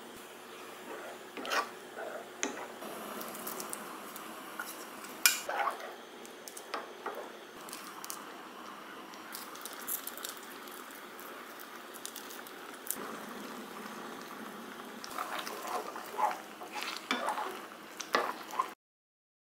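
Tteokbokki sauce simmering in a nonstick frying pan, a steady bubbling with scattered clicks and knocks as ingredients go in. Near the end a wooden spoon stirs the rice cakes, giving a quicker run of scrapes and knocks before the sound cuts off suddenly.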